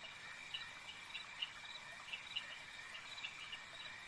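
Night insects, crickets chirping: short high chirps repeating every fraction of a second over a steady high-pitched trill.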